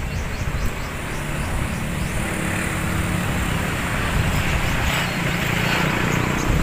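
Wind buffeting the microphone outdoors: a steady, uneven low rumble with a hiss above it, and a few faint high chirps near the start.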